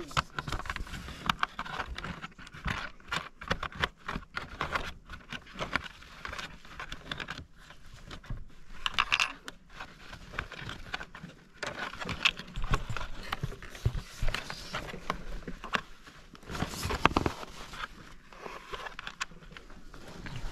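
Plastic baby walker frame being assembled by hand: irregular clicks, taps and scrapes of hard plastic and small metal bolts and wing nuts being fitted and tightened, with one louder knock about three quarters of the way through.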